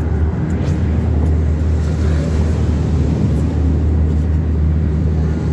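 Roller coaster train running on its track, a steady low rumble mixed with wind rushing over the microphone.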